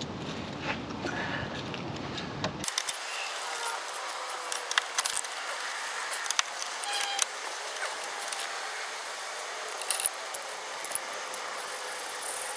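Scattered metallic clicks and clinks of hand tools being handled and fitted against metal, a few ringing briefly. A low rumbling background stops abruptly about three seconds in.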